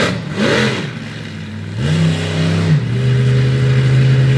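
Monster truck engine revving hard, rising and falling in a quick rev about half a second in. It then climbs and holds a steady high pitch, dips briefly just before the three-second mark, and holds steady again to the end.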